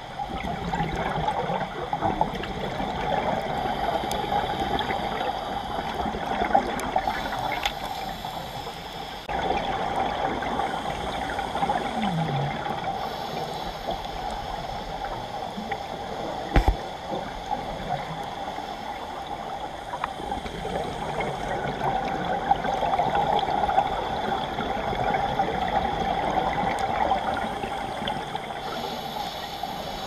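Muffled underwater rushing heard through a camera's waterproof housing, steady throughout, with a sharp click about two-thirds of the way through.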